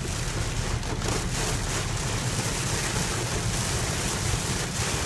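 Steady, heavy rain pouring down during a tropical storm.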